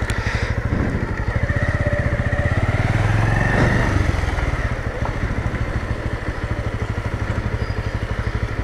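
Motorcycle engine running at low revs with an even, steady firing pulse, swelling a little for a couple of seconds near the start.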